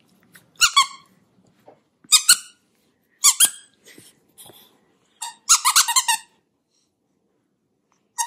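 Squeaker inside a plush dog toy squeaking as a Cavalier King Charles spaniel bites down on it: short squeaks in quick pairs, then a fast run of several about five and a half seconds in.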